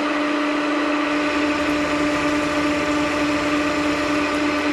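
MAHO vertical milling machine cutting a hexagon flat on a steel part under power feed, with coolant running. A steady machine hum with one constant tone and an even cutting noise, unchanged throughout.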